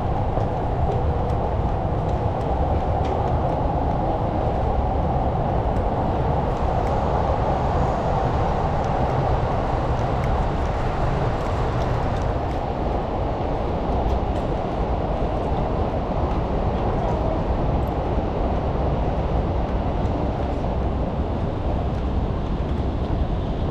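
Steady, even rumble of city traffic with a hiss above it, with no separate events standing out.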